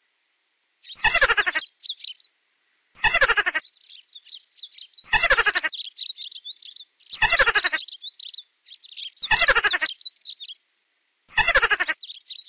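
A short squeaky call, used as a mouse sound, repeats about every two seconds, six times, each burst falling in pitch. Between the squeaks, small birds chirp high and thin, and the chirping cuts in and out abruptly.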